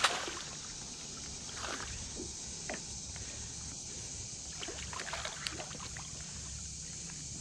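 Quiet water sounds beside a small boat: a landing net moving through the water with faint splashes and light knocks. A sharp knock comes right at the start.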